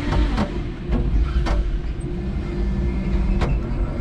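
A 5-ton electric forklift truck driving with a load of OSB boards on its forks: a steady rumble with a faint electric drive hum, broken by several sharp knocks.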